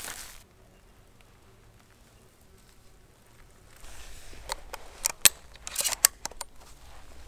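Shells being loaded into a 12-gauge shotgun: after a few quiet seconds, handling rustle and a handful of sharp metallic clicks, the loudest a little past five seconds in.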